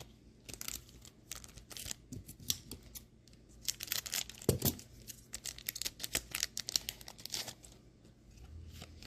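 Scissors snipping open foil Pokémon booster packs, with the wrappers crinkling: a run of short snips and crackles, busiest around the middle, with one dull thump about four and a half seconds in.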